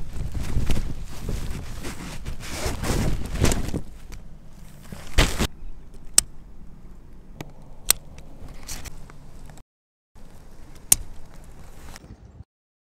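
Rustling and shuffling movement for about four seconds, then a handful of sharp knocks or cracks a second or two apart, the first the loudest, with the sound cutting to dead silence twice.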